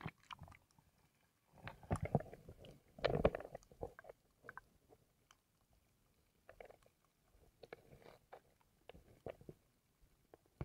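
Underwater sound picked up by a submerged camera: scattered faint clicks and crackles, with two louder muffled rushes of water noise about two and three seconds in.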